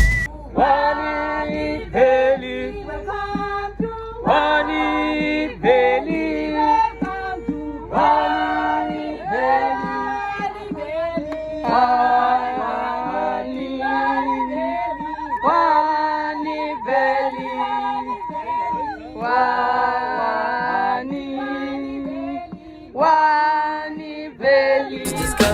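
A group of voices, women and men, singing together unaccompanied, with no instruments or beat.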